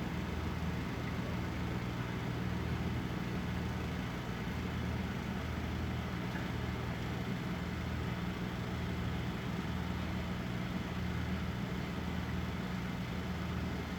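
Low, steady pulsing drone, presented as a Chinese soft-shell turtle snoring.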